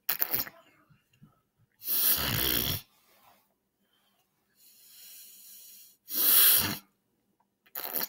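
A man forcing out harsh blasts of air from his throat, the two strongest about two seconds and six and a half seconds in, with a quieter drawn-in breath between them and short bursts at the start and end.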